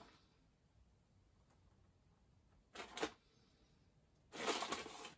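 Plastic bag of grated cheese rustling as cheese is shaken out of it onto a pizza: a short crinkle about three seconds in and a longer one near the end, quiet in between.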